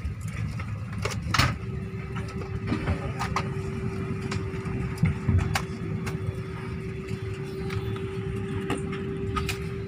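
Airliner cabin noise while parked at the gate: a steady low rumble, joined about a second and a half in by a steady hum that holds to the end, with a few scattered clicks and knocks.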